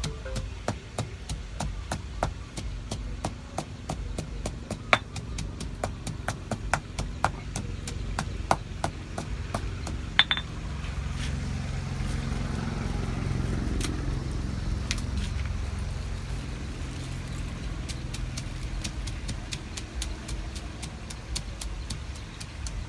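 Stone pestle pounding dried red chillies in a stone mortar, sharp knocks about three a second. The knocks stop about ten seconds in while a low rumble swells and fades, then resume near the end.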